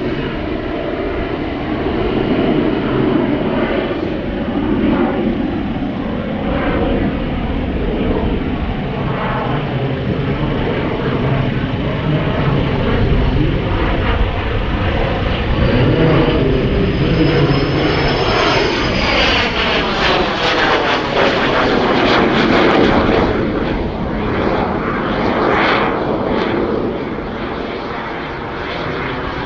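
Cessna A-37B Dragonfly's twin General Electric J85 turbojets roaring in a display pass. A high turbine whine falls in pitch about two-thirds of the way through as the jet goes by.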